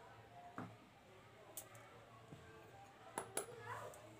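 Near silence: quiet room tone with a few faint, short clicks, two of them close together about three seconds in.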